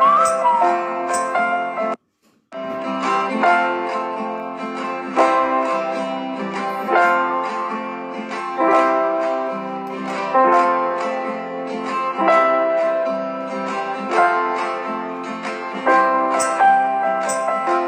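Background music led by a plucked string instrument playing a melody of regularly struck notes. It cuts out for about half a second around two seconds in, then carries on.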